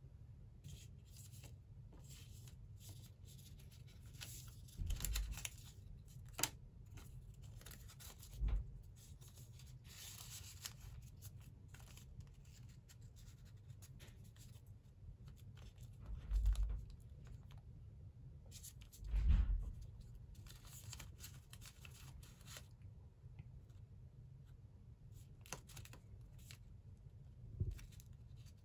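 Folded origami paper units handled and slid into one another by hand, rustling and crinkling, with a handful of soft thumps scattered through; the loudest thump comes about two-thirds of the way in.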